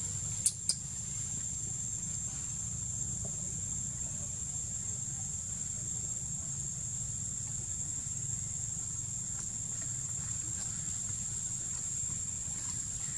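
Steady high-pitched insect drone, one unbroken tone, over a low background rumble, with two sharp clicks about half a second in.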